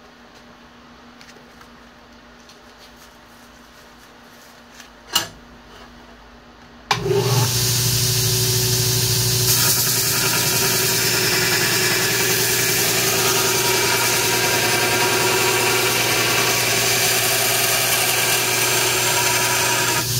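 A quiet pause with a single knock, then about seven seconds in a Grizzly 2x72 belt grinder is switched on, comes up to speed at once and runs steadily. It runs with a low hum under a loud hiss from its worn 36-grit belt.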